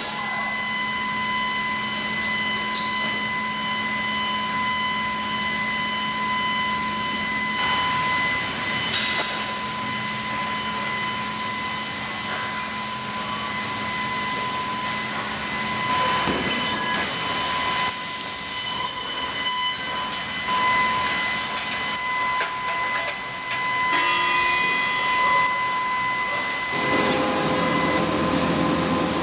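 Factory machinery running with a steady high whine over a hiss, with a few louder spells of high hissing. Near the end the noise turns louder and lower.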